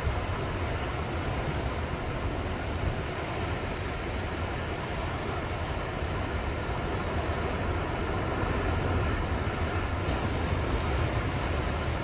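Sea surf washing over and breaking against coastal rocks: a continuous rush with a deep low rumble, swelling slightly about two-thirds of the way through.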